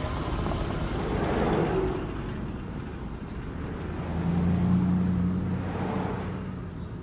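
Street traffic ambience: cars passing, the noise swelling and fading, with a vehicle's engine hum rising about four seconds in.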